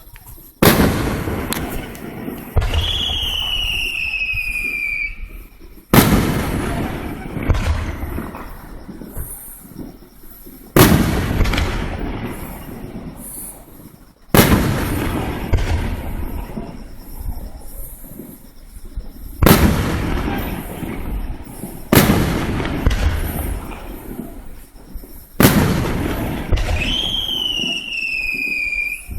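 Fireworks bursting overhead: about seven sharp bangs, a few seconds apart, each trailing off in a rumbling, crackling tail. A long, slightly falling whistle-like tone is heard twice, a few seconds in and again near the end.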